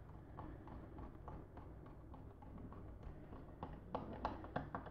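Faint small clicks and taps of the 3D-printed plastic outlet cover being set and pressed onto the utility box, with a few sharper clicks near the end.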